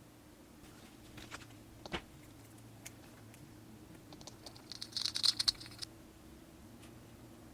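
Light scattered clicks and taps, with a brief flurry of rapid clicking about five seconds in, over a low steady hum.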